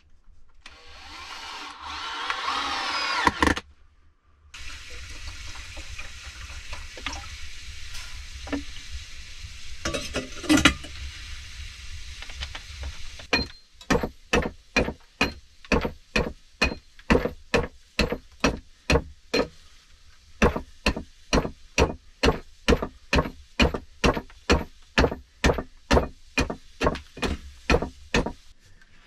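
Hand tool working wooden boards: a rapid series of sharp strokes about two a second, with a brief break about twenty seconds in.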